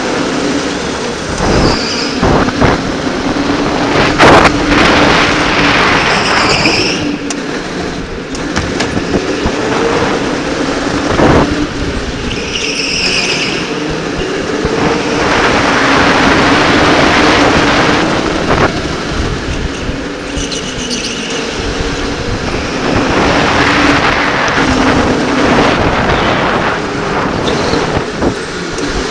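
Electric indoor go-kart racing heard from the driver's helmet: the kart's motor whine wavering with speed under heavy wind and tyre rush, with several short tyre squeals in the corners and a couple of sharp knocks.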